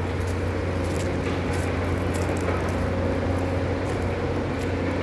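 Heavy diesel engine of demolition machinery running steadily with a low hum, with faint light clatter over it.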